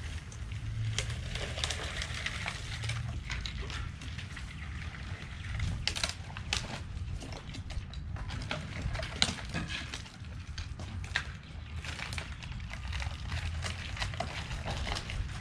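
Rustling with many irregular sharp clicks and knocks over a steady low rumble; no saw or engine is running.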